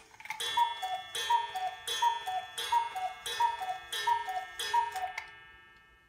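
Black Forest cuckoo clock calling the hour: seven cuckoo calls in steady succession, each a higher note falling to a lower one from the clock's bellows pipes, with a gong strike at each call. The calls stop a little after five seconds and the gong rings away.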